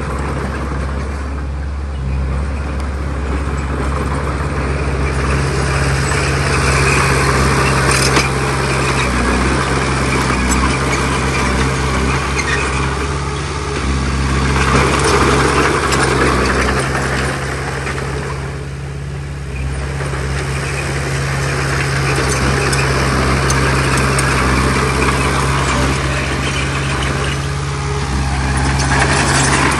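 Diesel engine of heavy earthmoving machinery running steadily under load, with a rattling noise over it that swells and fades every few seconds and one sharp clank about eight seconds in.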